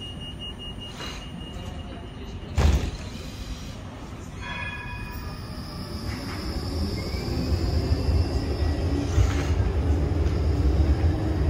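Bombardier Flexity tram approaching on a curved street track: a low rumble of wheels and running gear grows louder, with a high steady wheel squeal from about four and a half seconds on and a low rising motor whine. A single sharp knock about two and a half seconds in, and a brief ringing tone just before the squeal starts.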